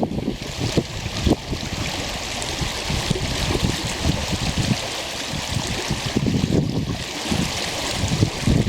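Stream water rushing steadily, with wind buffeting the microphone in irregular low gusts.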